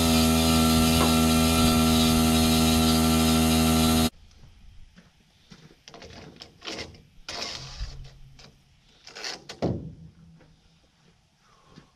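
A loud, steady machine hum that cuts off suddenly about four seconds in, followed by scattered knocks and clatter of metal pieces being handled, the loudest knock near the end.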